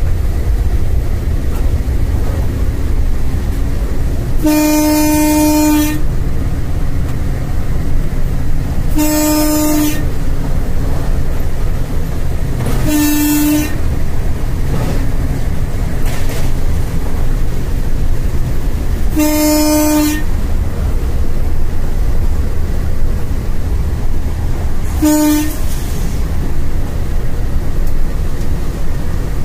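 Locomotive horn sounded five times from inside the cab, in blasts of one to one and a half seconds down to half a second, each a single steady pitched tone. Under them the cab's steady low running rumble carries on throughout.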